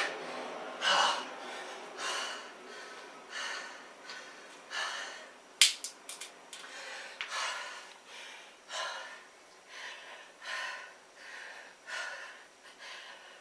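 A man breathing hard and fast, about one loud breath a second, recovering from sets of push-ups. A sharp click about halfway through, followed by a few smaller ones.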